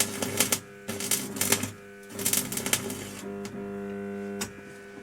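Stick (arc) welder crackling in three short bursts as the arc strikes and breaks off, then the welder's steady electrical hum, with a single sharp click near the end.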